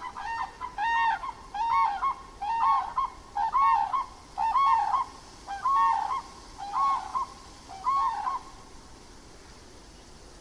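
Grey crowned crane giving a series of calls, about one a second, each a single note that rises and falls in pitch, stopping about eight and a half seconds in.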